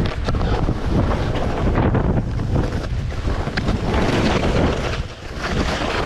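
Strong wind buffeting the microphone, a loud, uneven rumble with gusting hiss that rises and falls, easing briefly about five seconds in.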